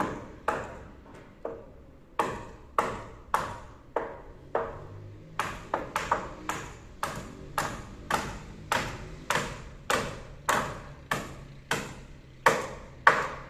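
Hammers striking nails into 2"x3" timber purlins on wooden rafters: a steady run of sharp blows about two a second, each with a short ringing ping, with two hammers' strokes overlapping in places. The hardest blows come near the end.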